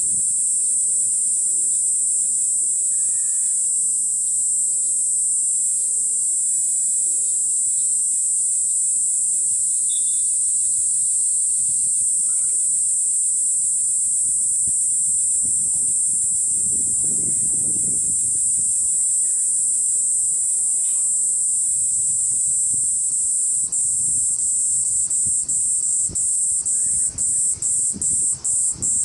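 Kaempfer cicada (Platypleura kaempferi) singing at close range: a loud, steady, high-pitched shrill that, about five seconds before the end, starts breaking into rapid pulses, about two or three a second.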